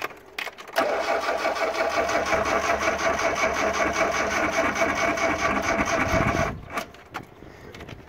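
A ZAZ Slavuta's four-cylinder engine is cranked on its electric starter for about six seconds without catching, then the cranking stops abruptly. The long crank runs the battery down.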